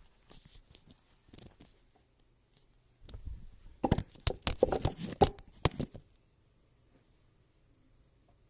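A flurry of quick knocks and rustling for about three seconds, starting a few seconds in, then it goes quiet.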